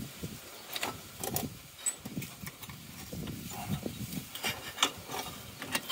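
Scattered clicks, knocks and rustling as an 18V cordless drill with a wire cup brush is handled and worked in among the engine-bay parts; the drill is not running.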